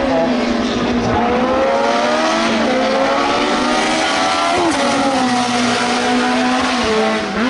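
Formula racing car engine accelerating hard, its pitch climbing through the gears with quick upshifts about two and a half and four and a half seconds in.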